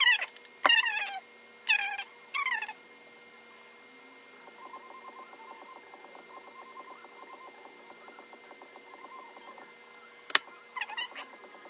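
A small animal's short, high-pitched calls, each falling in pitch, several in quick succession at the start and a few again near the end. A sharp click comes about a second in and another near the end, with a faint soft patter in between.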